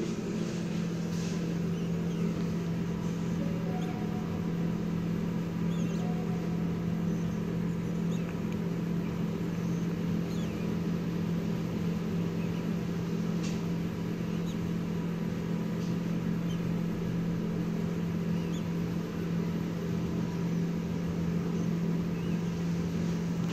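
Dong Yang CL70 high-speed traction elevator car travelling upward at speed, heard inside the cab: a steady low hum over a rush of air, with a few faint high squeaks now and then.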